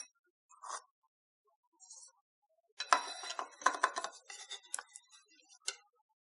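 Paneer pieces being added to a bowl: a cluster of clinks and knocks against the bowl over about three seconds, a few of them ringing briefly.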